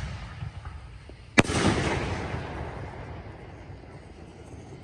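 A firework mortar shell bursting with one sharp, loud bang about a second and a half in. An echoing rumble follows and fades over the next two seconds.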